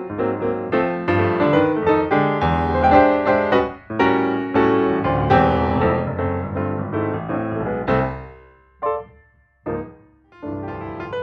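Background piano music with a steady, light rhythm. It briefly thins to a few single notes near the end before picking up again.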